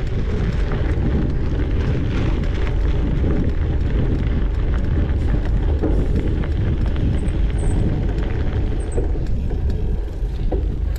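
Wind buffeting the microphone while a cyclocross bike rides at speed over a dirt trail: a steady heavy rush of wind and tyre noise, with many small clicks and rattles from the bike over rough ground.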